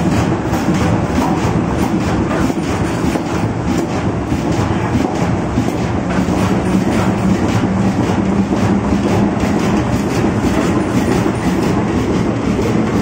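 Huali printer slotter die-cutting machine for corrugated board running at speed, its rollers and feed mechanism making a loud, steady mechanical clatter with a fast, even clacking rhythm as cardboard sheets feed through.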